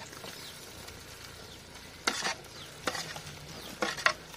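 A metal spatula scraping sliced tomatoes off a steel plate into a clay cooking pot, a few short scrapes in the second half, over the steady sizzle of onions frying in oil in the pot.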